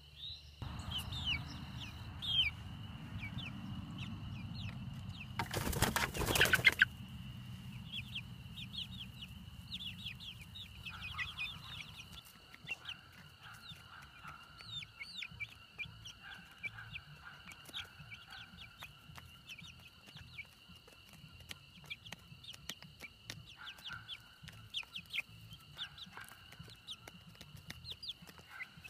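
Young chickens chirping, a stream of short high peeps as they feed, over a steady high insect trill. A loud rustle about six seconds in lasts around a second.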